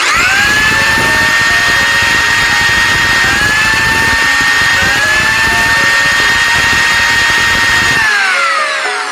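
Miniature mixer-grinder's small electric motor running as it grinds a dried red chili, garlic and spices: it starts suddenly and its whine rises as it spins up. The pitch sags and picks up again twice, then winds down near the end.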